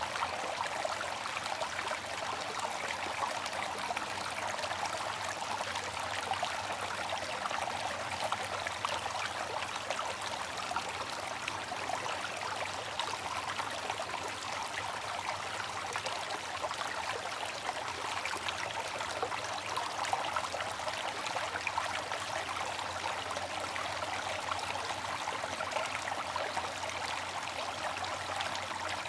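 Water trickling and splashing steadily from a bamboo water fountain, an unbroken stream of small splashes with no pauses or changes.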